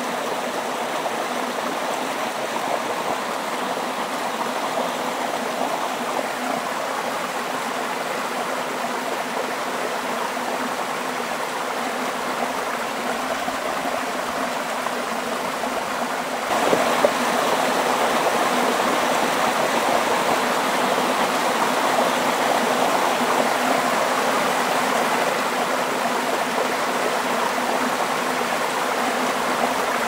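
Waterfall and stream: water cascading over rocks in a steady rushing noise, which steps up a little louder about halfway through.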